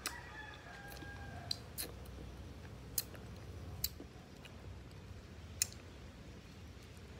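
A rooster crows faintly for about the first second and a half. Throughout, there are about six sharp clicks and snaps as rambutan fruit is handled, pulled from the bunch and its rind split open.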